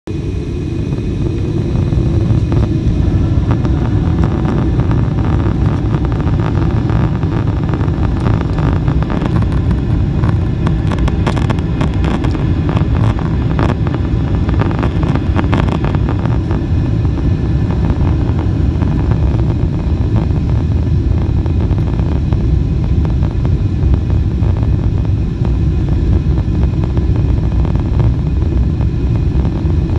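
Jet airliner cabin during takeoff: a loud, steady low rumble of engines and runway that builds over the first couple of seconds, with a run of rattling clicks between about eight and sixteen seconds in.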